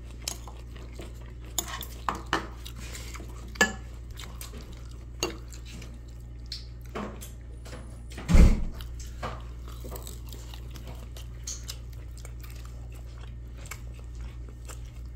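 Scattered light clinks of metal chopsticks and tableware against dishes during a meal, with one louder dull knock about eight seconds in, over a steady low hum.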